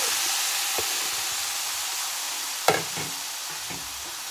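Marinated chicken pieces sizzling in hot oil in a nonstick frying pan, a steady hiss that fades slightly. One sharp knock a little past halfway.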